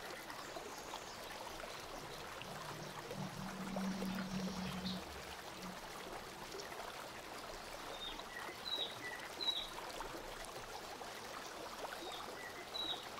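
Steady faint hiss of room tone. A low hum comes in for about two seconds a few seconds in, and a handful of faint, short high chirps follow in the second half.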